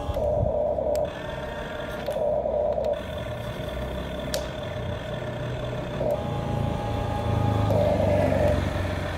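Huina radio-controlled excavator's electric motors and gears running as the arm swings and the bucket lowers and lifts, a low hum that grows stronger in the second half. An electronic tone sounds several times in short spells over it, and there is one sharp click about four seconds in.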